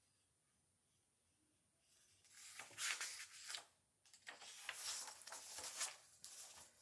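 Paper pages of a picture book being turned by hand: two stretches of rustling and flapping paper, the first starting about two seconds in.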